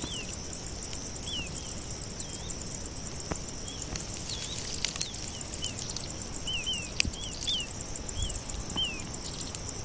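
A steady high trill from a chorus of insects, with a bird giving short falling chirps, more than a dozen at irregular intervals.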